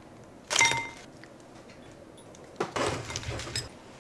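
A single short ringing clink about half a second in, as of a hard object struck against dishware or metal. Then about a second of clattering handling noise.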